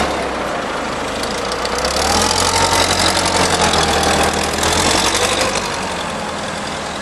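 A Daewoo cushion-tire forklift's freshly rebuilt Hercules 2.7-litre LP-gas engine running as the forklift drives off. It gets louder and higher from about two seconds in, then eases back down over the last couple of seconds.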